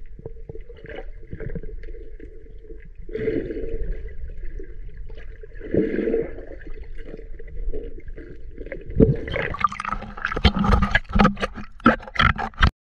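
Underwater action-camera audio in a river: muffled gurgling, with swells of bubbling about three and six seconds in. About nine seconds in, the camera breaks the surface and a run of loud splashes and crackles of water on the camera follows, cutting off abruptly near the end.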